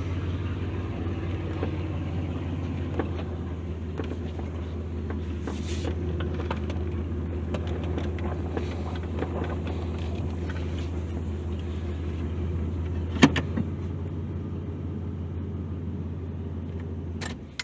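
Pickup truck engine idling steadily, heard from inside the cab, with a single sharp knock about 13 seconds in.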